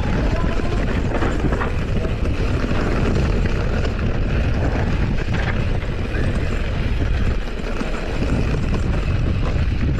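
Wind buffeting the microphone and tyre rumble over a rough dirt and gravel track as a mountain bike rides along it: a loud, steady rushing noise, heaviest in the low end.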